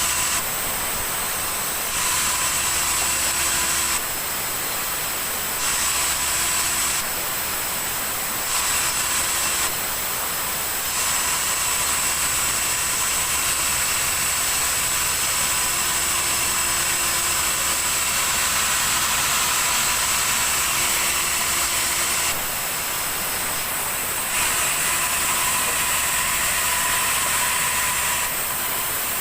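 Sawmill saw running and cutting through a log: a loud, steady hiss with a high whine, its level shifting abruptly several times.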